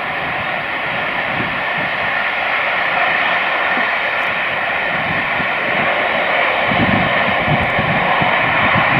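Steady roar of motorway traffic mixed with the LMS Princess Coronation class Pacific steam locomotive 46233 Duchess of Sutherland running past with its train, slowly growing louder. Low rumbling beats come in from about seven seconds in.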